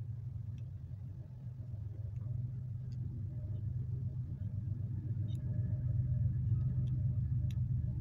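A low steady rumble that slowly grows louder over the first six seconds, with faint sharp clicks here and there above it.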